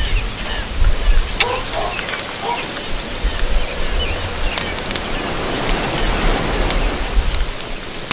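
Outdoor ambience of many small birds chirping, with a few lower calls about one and a half to two and a half seconds in. Wind rumbles on the microphone over a steady hiss.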